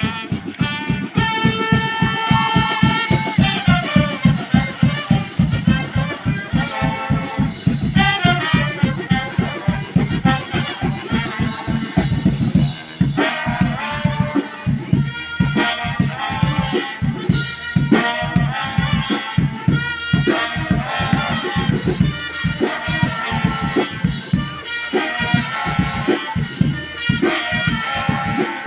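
Street brass band playing live: horns carry held and moving melody lines over a steady, driving beat.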